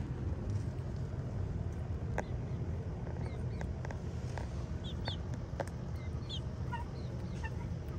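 Short high bird chirps, a few at a time, beginning a few seconds in, over a steady low rumble, with a couple of sharp clicks.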